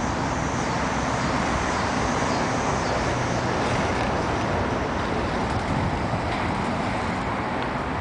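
Steady city street traffic noise: a continuous even rush of passing road vehicles, with no single event standing out.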